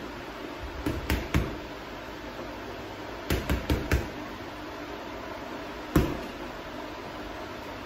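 Gloved punches landing on a leather heavy bag. A quick three-punch combination comes about a second in, a four-punch flurry follows around three and a half seconds, and a single hit lands near six seconds.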